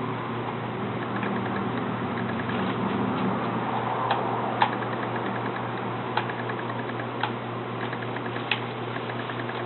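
Small hand tools and laptop parts being handled during disassembly: a run of faint quick ticks, then scattered sharp clicks and taps, over a steady low hum.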